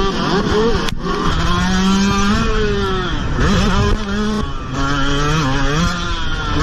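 Yamaha motocross bike engine under hard acceleration, pitch climbing and then dropping at each gear change, several times over, with other race bikes running close by.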